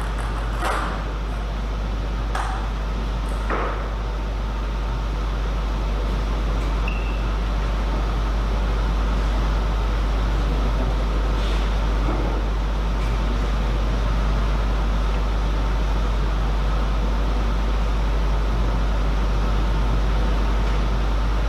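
Steady background noise with a constant low hum. A few light knocks come in the first four seconds, then only the steady noise.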